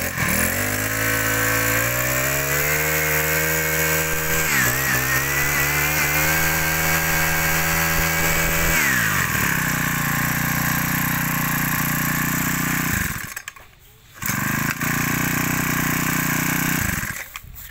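Makita MEM428X four-stroke brush cutter engine running. It revs up and holds high, with a short dip in revs about four and a half seconds in, then drops back to idle about nine seconds in. It goes quiet for about a second and a half around thirteen seconds in, runs again, and stops near the end.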